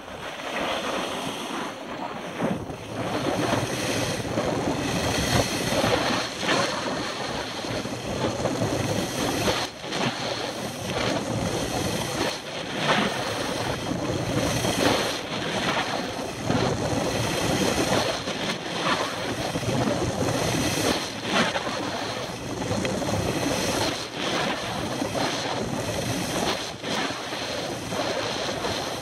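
Wind rushing over the microphone of a camera carried at speed down a groomed ski slope, buffeting in uneven swells, mixed with the scraping hiss of edges carving through the firm corduroy snow.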